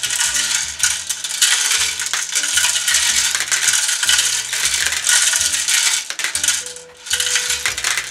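Small plastic Lego pieces rattling as they tumble in the turning drum of a Lego Technic 42112 concrete mixer truck and spill down its chute into a clear plastic tub. The drum is being cranked by hand in its unloading direction. The rattle runs on with a short break about six and a half seconds in.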